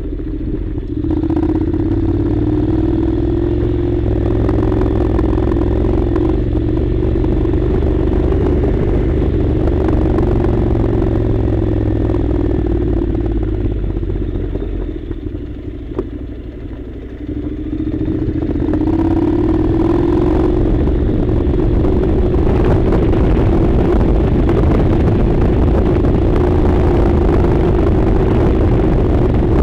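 Honda NC700's parallel-twin engine running steadily under way. The engine eases off about halfway through, then picks up again a few seconds later and keeps pulling.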